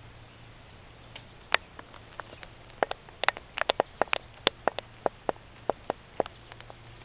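A rapid, irregular series of sharp clicks, some louder than others, starting about a second in and stopping shortly before the end.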